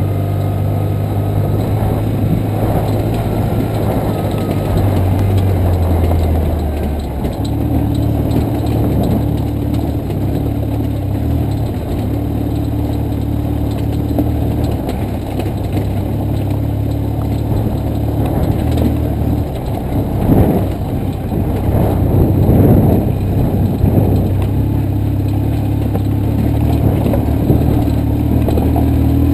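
BMW motorcycle engine running at steady low revs while the bike rattles and knocks over a rocky dirt track. The engine note steps up about seven seconds in, and a run of harder knocks and bumps comes about twenty seconds in.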